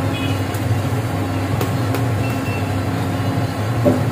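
Steady low rumble of background noise, with a few sharp taps of a kitchen knife striking the steel counter as it cuts through a stack of sandwiches.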